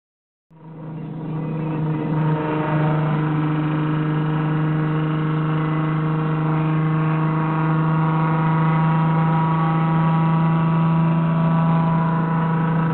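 IKA Torino engine running with its hood off, a loud steady rumble that holds an even pitch. It fades in about half a second in.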